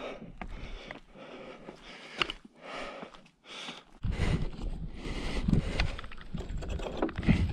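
A runner's rhythmic breathing and footfalls while scrambling over rock. About four seconds in, a loud low rumble of wind buffeting the microphone takes over.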